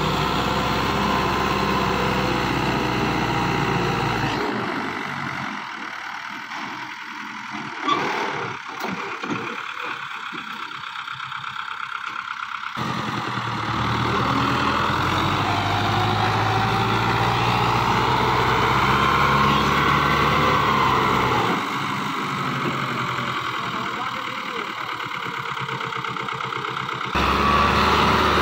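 Fiat 640 tractor's four-cylinder diesel engine working hard under load, straining to haul a loaded trolley up a muddy slope. Its pitch rises and falls a few times, and the sound changes abruptly several times.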